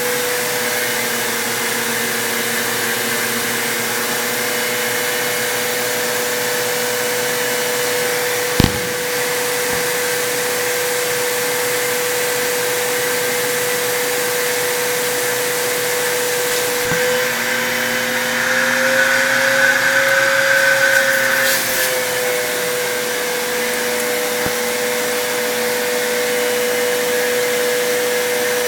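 Vacuum cleaner running steadily. There is a single sharp knock about nine seconds in. For a few seconds past the middle, the motor's pitch rises slightly and it gets a little louder.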